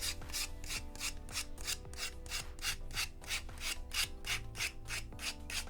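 Sandpaper rubbed quickly back and forth along the edge of a plastic model kit part, at about five even strokes a second, smoothing off the sprue nub and flash.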